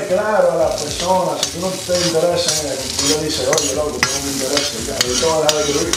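Utensil stirring and scraping shrimp in a sizzling frying pan, with a string of small clicks from the spoon against the pan.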